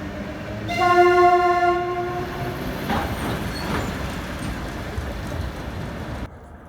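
Georgian Railway train horn blown once for about two seconds on a single steady tone, followed by the rumble and wheel-on-rail clatter of the train. The train noise cuts off suddenly near the end.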